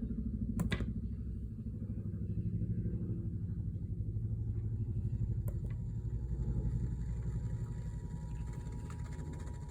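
A low, steady rumble with a fast flutter in it, broken by two sharp clicks about a second in and about halfway through. A faint steady tone comes in near the end.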